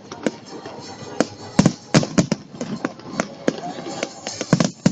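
Fireworks bursting in an irregular run of sharp bangs and crackles, the loudest about a second and a half, two seconds and four and a half seconds in.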